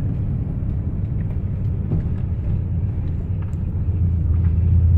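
Ford F-150 pickup's engine and drivetrain running as the truck drives along, heard from inside the cab: a steady low drone that grows louder about four seconds in as the engine pulls harder.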